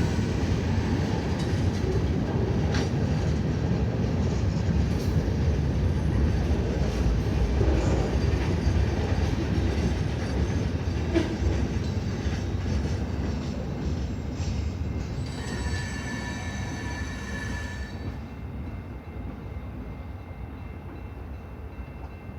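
CN train's railcars rolling past, a steady low rumble of wheels on rail that gradually fades. A brief high-pitched squeal comes about two-thirds of the way through.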